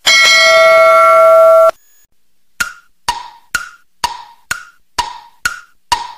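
Sound effects: a bell-like ding ringing for just under two seconds, then a countdown's wood-block ticks, short sharp clicks about two a second.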